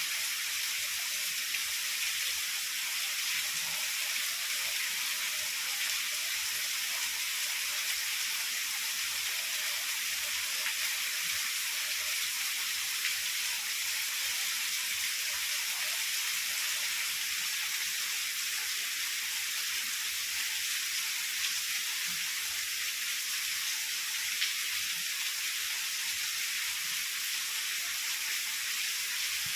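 Heavy rain pouring steadily, an even high hiss that does not change.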